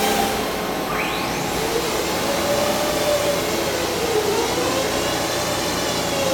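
Machinery running in a machine shop: a steady mechanical whir with a whining tone that slowly rises and falls in pitch. A quick rising whine comes about a second in.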